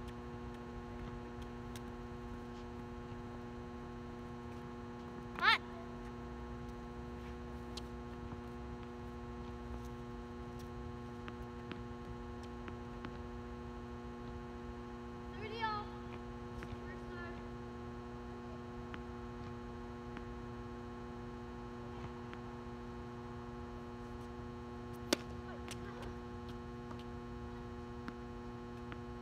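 Steady electrical mains hum from the court's floodlights, holding a constant pitch throughout. A few brief sharp sounds cut through it, the loudest about five seconds in, another two-thirds of the way in, and a click near the end.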